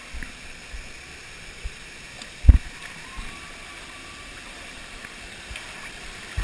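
Steady rush of falling and churning water in a water-park splash pool, heard through a head-mounted GoPro, with low dull thumps throughout and one much louder thump about two and a half seconds in.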